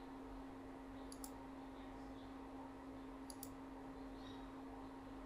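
Computer mouse clicking: two short pairs of clicks about two seconds apart, over a faint steady electrical hum.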